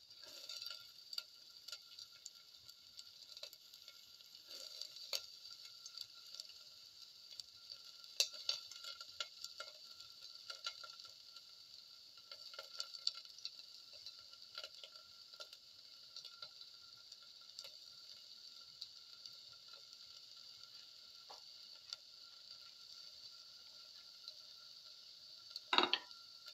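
Chopped onion pieces dropping into a stainless steel pan: light, scattered taps and patters on the metal over a faint steady hiss, with one louder clatter near the end.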